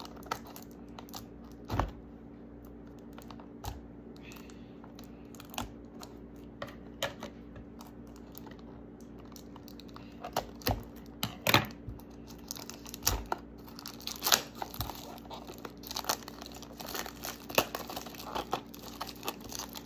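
Scissors cutting at a small cardboard toy box, heard as scattered sharp snips and clicks. About halfway through these grow busier, with crinkling and tearing of the packaging as the box is worked open.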